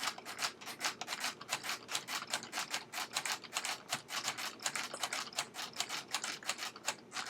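Keys of a LEGO Ideas Typewriter (21327) being pressed one after another, the plastic key and typebar mechanism clacking in a rapid run of clicks, about five or six a second.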